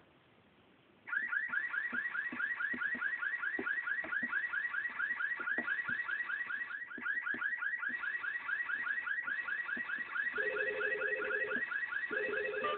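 Electronic warbling tone, a rapid steady train of rising chirps like an alarm or ringtone, starting about a second in. Near the end a lower buzzing two-tone sound joins, breaks off briefly, then resumes.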